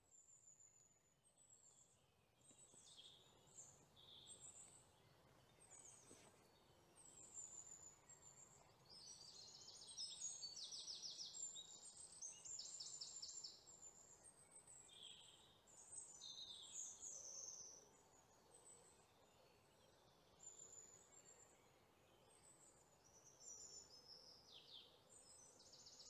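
Faint birdsong: scattered high chirps, some falling in pitch, and a few short rapid trills, with quiet gaps between.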